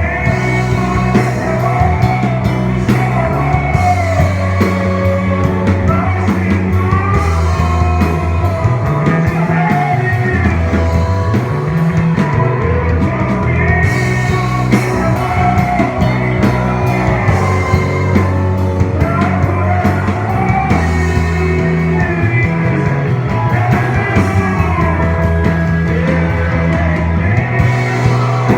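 A worship band playing, with singing over bass notes that change every second or two and regular drum hits.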